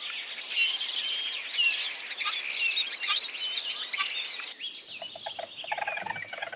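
Bali myna (Bali starling) chirping and whistling, with many short, busy calls. About four and a half seconds in, this gives way to a rapid high trill with a quicker, lower chatter beneath.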